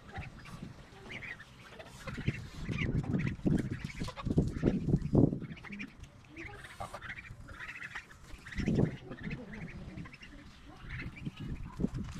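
A small flock of domestic geese calling with many short calls. Louder low rumbles come in between, about three to five seconds in and again near nine seconds.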